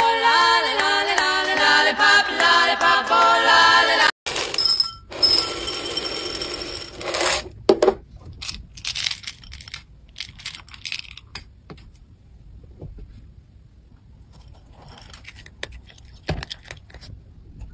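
Music for the first four seconds. From about eight seconds on, soft scattered clicks and crunches of a cat eating dry kibble from a glass bowl, the pellets clinking against the glass.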